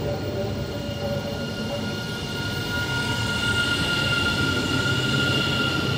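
Two coupled Protos electric multiple units running past at speed: a continuous rolling rumble, with a steady high squeal that swells through the middle and eases off near the end.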